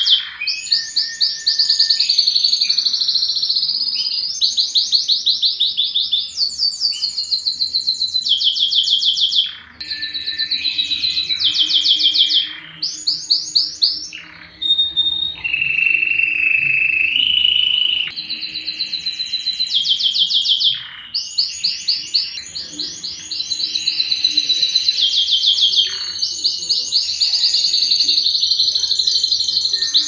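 Domestic canary singing a continuous song of very fast trills and rolls, phrase after phrase with brief breaks, and a held whistled note about halfway through.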